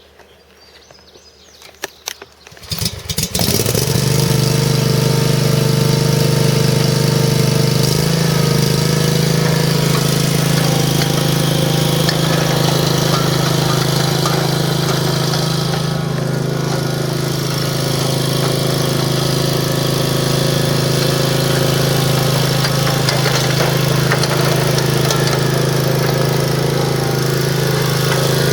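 Stand-on zero-turn mower's Kawasaki FH541V 17 hp V-twin engine starting. A few clicks come first, then the engine catches about three seconds in and settles into a steady run.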